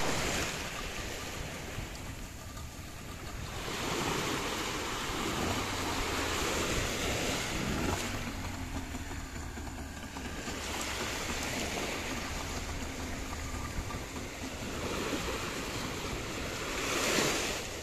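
Small waves washing in the shallows, with wind on the microphone.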